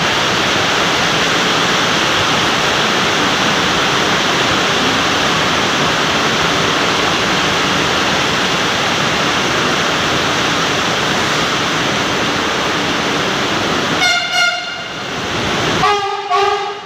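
Heavy rain falling steadily. A Delhi Metro train's horn then sounds twice as the train pulls in: a short blast about fourteen seconds in, and a second, lower blast near the end.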